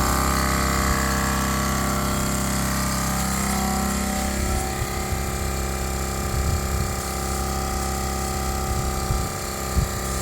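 Air compressor motor running steadily, pumping air into the truck's new rear suspension air bags as it inflates them toward about 60 psi for a leak test.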